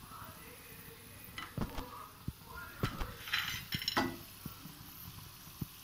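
Gram-flour-coated peanuts frying in hot oil with a soft, steady sizzle. A steel slotted spoon clicks, scrapes and knocks against the wok several times, busiest in the middle.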